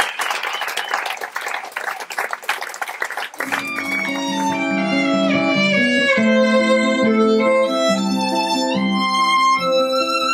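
Audience applauding, which gives way about three and a half seconds in to a violin melody with sliding notes over a low accompaniment.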